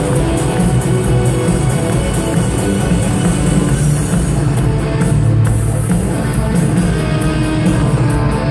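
A live rock band playing loudly through a stadium PA, with electric guitar and drums, heard from within the crowd.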